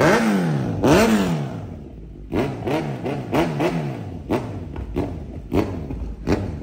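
Kawasaki Z900's inline-four engine, on a full-system aftermarket exhaust with an Akrapovič silencer, revving as the throttle is blipped at standstill: two strong revs, then several short, lighter blips in quick succession.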